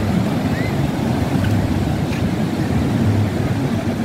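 Wind on the microphone, a steady low rumble, mixed with the wash of surf breaking along the beach below.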